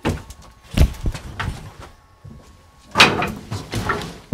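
Irregular wooden knocks and thumps: footsteps on the bare old floorboards and bumps against a wooden door and frame as someone walks through a doorway. The loudest knock comes about three seconds in.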